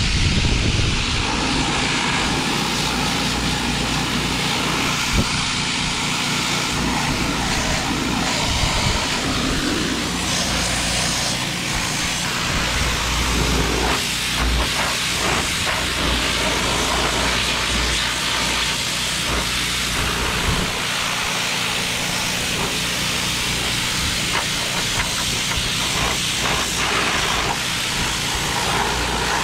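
Pressure washer running, its jet hissing steadily against steel tractor sheet-metal panels, rinsing off paint and rust loosened in an electrolysis tank. A steady low hum from the machine runs under the spray.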